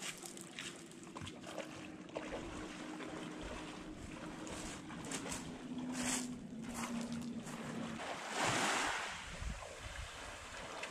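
A person wading through shallow seawater with uneven sloshing steps, then a loud splash about eight seconds in as he plunges in to swim. A faint low steady hum runs under the first eight seconds, and wind buffets the microphone.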